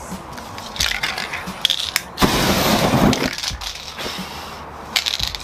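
Crinkling, crunching noise of something being crumpled and handled. It is loudest for about a second, starting just over two seconds in, with short rattly bursts about a second in and again near the end.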